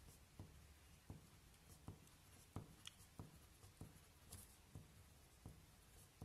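Faint pen strokes on paper as rows of short lines are drawn: a brief scratch roughly every two-thirds of a second.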